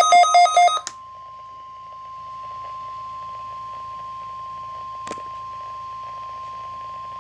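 Weather radio sounding an Emergency Alert System weekly test: a quick run of about five loud beeps in the first second, then the steady single-pitch alert tone of NOAA Weather Radio, with one sharp click about five seconds in.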